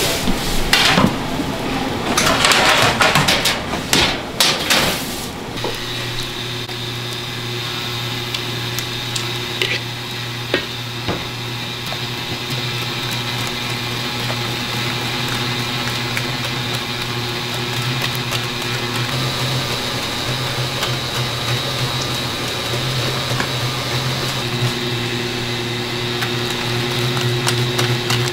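Handheld electric mixer with a whisk head running steadily, whipping a thick garlic sauce in a large steel bowl; its motor gives a steady hum whose tones shift slightly about three-quarters of the way through. The first few seconds hold loud, irregular clattering and rushing noise before the hum settles in.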